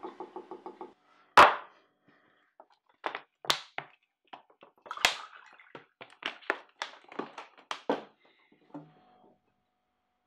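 A plastic water bottle handled and poured into a glass on a kitchen table: a fast rhythmic clinking that stops about a second in, one loud thunk soon after, then a run of sharp crackles and clicks from the bottle's thin plastic and the pour.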